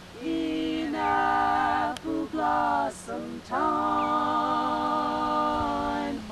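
Three women singing a cappella in close harmony, in short phrases with brief breaths between them, then one long held chord through the second half.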